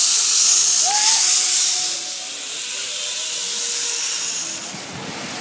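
Zipline trolley running along the steel cable overhead: a loud, high, steady hiss that fades away near the end as the rider passes.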